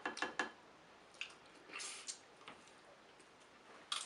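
Snow crab legs being picked apart by hand and eaten. A cluster of short clicks and snaps of shell comes in the first half second, a few more scattered noises follow, and one more click comes near the end, with soft chewing between.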